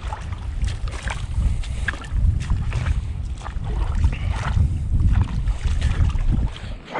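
Wind blowing across the microphone, a steady low rumble, with light scattered clicks and rustles over it.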